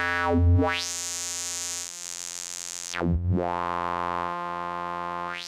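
A sustained note from a Renoise wavetable synth, made of a crossfaded saw and square wave, played through a resonant bandpass filter whose frequency is swept. The bright resonant peak rises from the bass to very high within the first second and holds there. About three seconds in it dives back down and climbs partway up again, and near the end it shoots up and falls quickly. The note's pitch shifts twice along the way.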